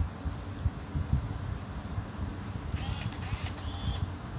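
Konica Lexio 70 compact film camera's zoom lens motor whirring for about a second, roughly three seconds in, over a low rumble of handling noise.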